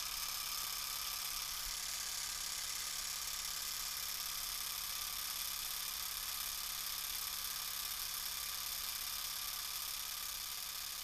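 Film projector sound effect: a steady mechanical whir with a hiss, easing slightly near the end.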